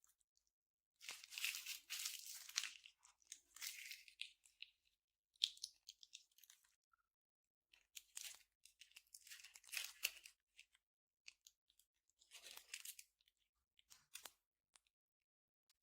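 Slime being squeezed and stretched by hand: several soft bursts of crackly, clicky noise, each a second or two long, with short quiet gaps between.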